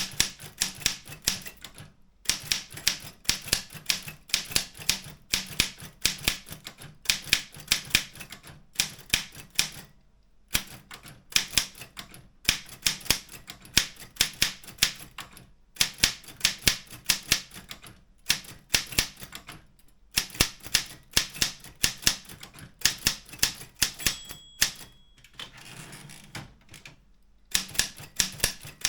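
Optima M14 manual typewriter being typed on: fast runs of sharp keystroke clacks broken by short pauses every couple of seconds.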